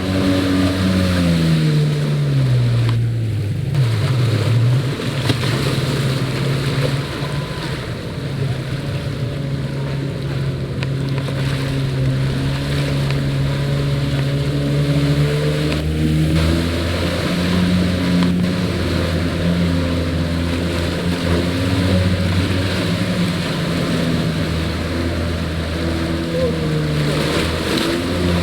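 Jet ski engine running, its pitch falling over the first few seconds, then holding steady before rising again about halfway through, over a rushing haze of water and wind noise.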